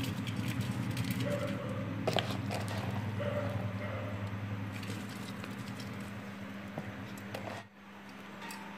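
Rice being dropped and pressed by hand into an aluminium pressure cooker: soft pattering and rustling of grains, with light clicks against the pot. A steady low hum runs underneath and drops away near the end.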